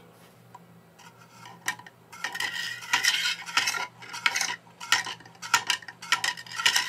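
Plastic model Geneva drive being turned by hand, clicking and clattering as the drive wheel's pin advances the six-slot driven wheel one step at a time. Irregular clicks and rattles start a second or two in and go on from there.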